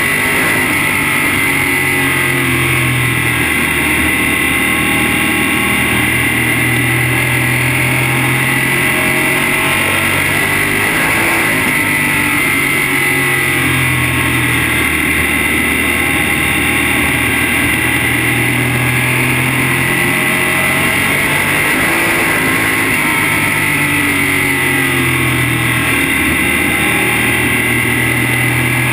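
Modified race car's V8 engine heard from inside the cockpit at racing speed, loud and continuous, its pitch falling and rising every few seconds as it lifts for the corners and accelerates down the straights.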